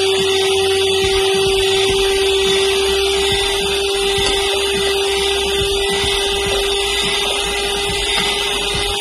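Electric hand mixer running at a steady speed: its motor gives a constant whine over the whirr of the beaters whisking thin cake batter in a metal pan.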